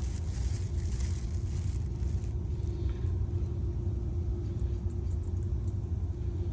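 Steady low rumble with a faint constant hum.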